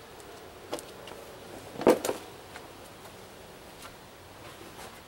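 A few brief knocks and clicks, the loudest pair about two seconds in, over faint steady background noise.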